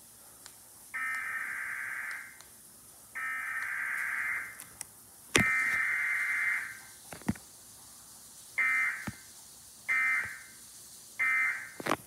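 Emergency Alert System digital data bursts (SAME header tones) played through a TV for a Required Weekly Test. There are three buzzing bursts of about a second each, about two seconds apart, then three shorter bursts: the end-of-message code. There is no attention tone or voice message.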